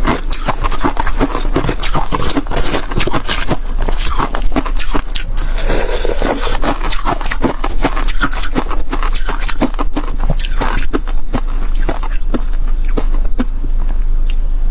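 Flaky frozen ice being bitten and chewed close to the microphone: a dense, continuous run of crisp crunches and crackles.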